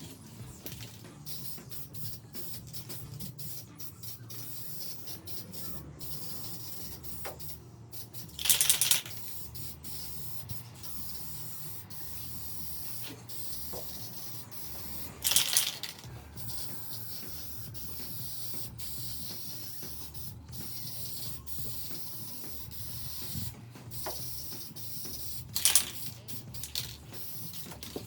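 Aerosol can of satin black spray paint hissing as it is sprayed, with three louder bursts of about a second each.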